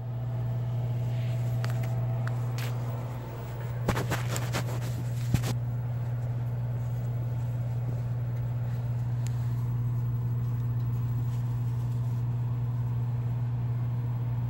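A steady low hum runs throughout. A cluster of sharp knocks and scrapes comes about four to five and a half seconds in.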